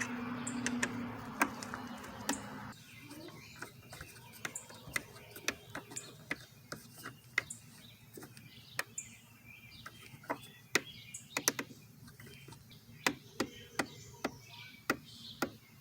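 Irregular sharp clicks of a 4 mm hex key working a windscreen bolt as it is screwed in. A steady hum fades out about two and a half seconds in.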